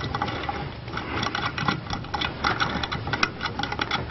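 A small bolt being spun out by hand from the bronze check flange of a backflow preventer body, making a run of quick, irregular clicks.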